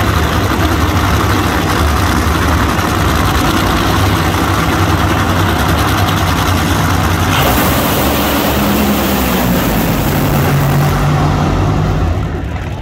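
Four nitro funny cars' supercharged V8 engines running hard at the starting line; about seven seconds in the sound changes sharply into the launch and full-throttle pass, which lasts about three and a half seconds, and the sound falls away near the end.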